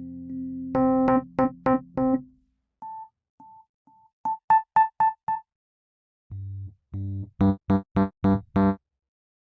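Sampled Fender Rhodes Mark I electric piano playing: a held chord, then short repeated chords, a sparse figure of high single notes, a pause, and more repeated chords over low notes near the end.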